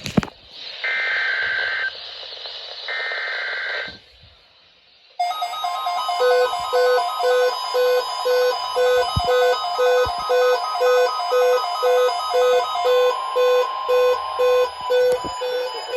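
NOAA Weather Radio weekly test heard through a receiver with heavy static: two screechy data bursts of the SAME alert header, a short pause, then an alert alarm beeping about twice a second over a steady warning tone, which stops near the end.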